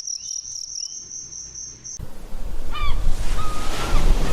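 Cricket chirping in a steady, high, pulsing trill. About two seconds in it cuts abruptly to a loud surf-like rushing noise with a run of short, repeated calls.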